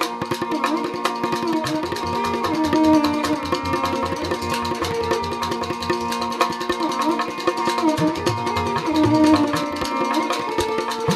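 Rajasthani folk instrumental music: a kamaicha, the bowed folk lute, plays a sliding melody over a steady drone. A morchang (jaw harp) and hand drums keep a brisk rhythm beneath it.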